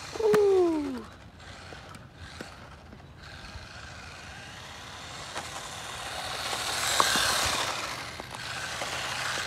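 Small 1/16 scale RC drift car with a 380 brushed motor running on rough asphalt: a short, loud falling tone just after the start, then the motor and tyre noise swelling as the car comes close about seven seconds in, with a few sharp clicks.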